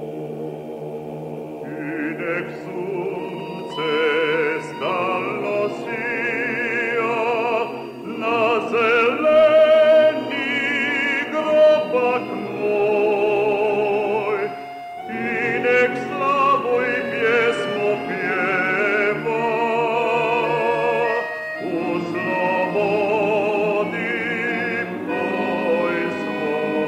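Classical choral singing with vibrato: several voices holding long notes together, with short breaks about 15 and 21 seconds in.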